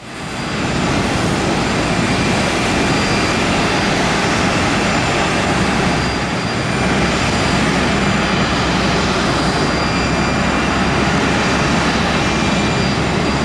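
Steady jet aircraft turbine noise: an even, loud roar with thin high-pitched whine tones above it, coming in abruptly at the start.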